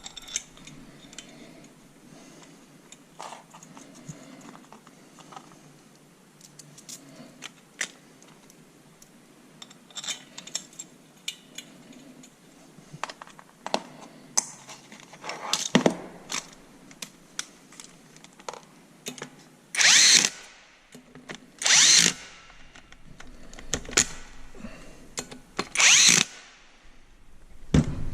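Hand tools and metal parts clicking and knocking during repair of a vane vacuum pump, with several loud bursts of under a second each near the end, three of them about two seconds apart.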